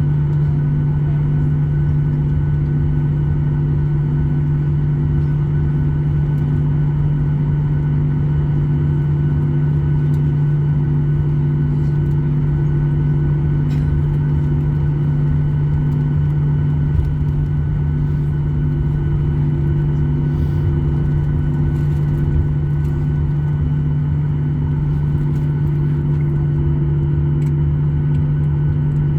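Steady drone of a Boeing 737-800's CFM56 turbofan engines heard inside the passenger cabin, a constant low hum with fainter tones above it.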